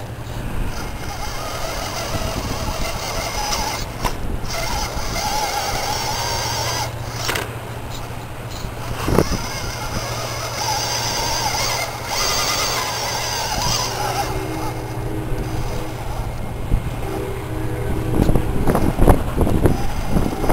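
Electric motor and geared drivetrain of a scale RC rock crawler whining in bursts as it is throttled up the rock. Several sharp knocks near the end, from the tyres and chassis hitting the rock.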